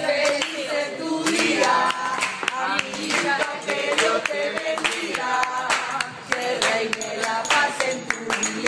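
A group of people singing together while clapping their hands in time, with steady, evenly spaced claps.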